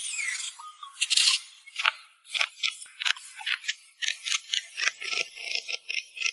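Quick, repeated scraping strokes of a hand tool on wood, starting about a second in and coming roughly two a second, faster toward the end.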